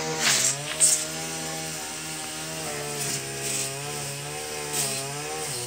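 Honeybee swarm buzzing as the colony absconds from its hive: a dense, continuous hum whose pitch wavers up and down, with a couple of brief scrapes in the first second.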